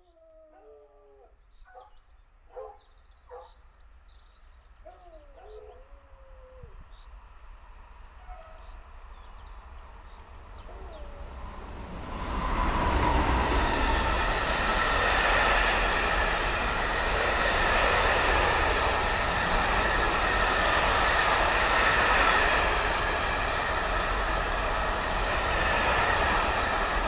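Birds singing over the faint rumble of an approaching train, then from about twelve seconds in a long freight train of orange hopper wagons passes close by: a loud, steady rush of wheels on rails.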